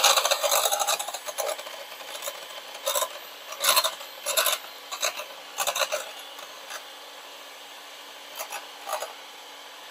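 Electric hand mixer whipping heavy cream and powdered sugar in a glass bowl, its beaters scraping and rattling against the glass. Louder for about the first second, then a quieter steady motor hum with repeated scraping bursts.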